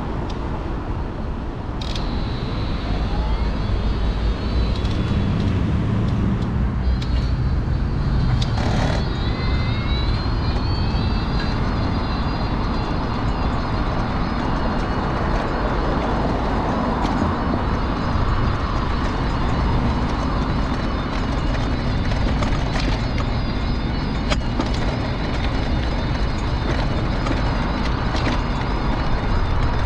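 Electric mobility scooter running along a pavement: its motor whine rises in pitch for a few seconds about eight seconds in, then holds steady over a constant rumble of the wheels, with a couple of sharp knocks from bumps early on.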